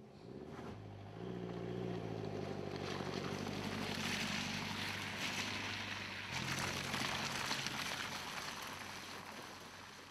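Mercedes-Benz C-Class All-Terrain's four-cylinder engine pulling along a dirt track, growing louder as the car passes close by with tyre noise on the dirt, then fading as it drives away.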